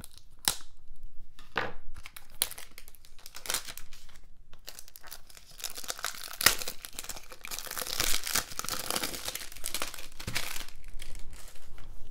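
Plastic shrink wrap being torn and peeled off a Blu-ray case, crinkling and crackling, busiest in the second half, with one sharp click about halfway through.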